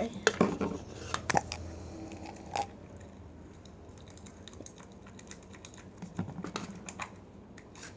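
Freshly activated, rubbery slime being squeezed and stretched by hand, giving off irregular sticky clicks and little pops in clusters, busiest in the first second or so and again near the end.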